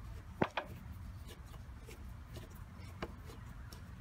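A Phillips screwdriver turning a screw down onto the alternator fuse terminal in a car's fuse box: a few small metal clicks, the sharpest about half a second in and another near the end, over a low steady hum.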